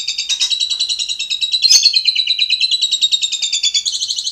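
Starling singing a rapid, continuous, high-pitched trill, with a sharper note about 1.7 s in.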